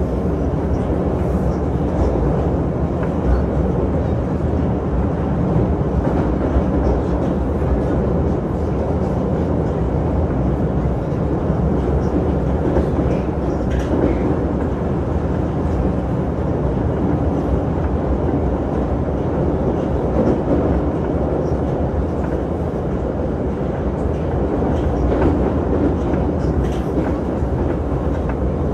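Moskva-2020 metro train running between stations, heard from inside the passenger car: a steady rumble of wheels and running gear with a few faint clicks.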